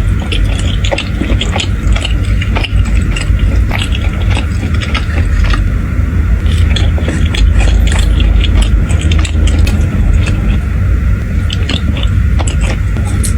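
Close-miked eating sounds of pizza being bitten and chewed: irregular small crunches and clicks over a steady low rumble.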